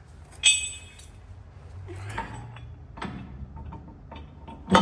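Heavy steel parts clanking as a pintle hitch is set onto its steel mounting plate. A sharp, ringing metal clink comes about half a second in, softer knocks and scrapes follow, and a loud thump comes near the end.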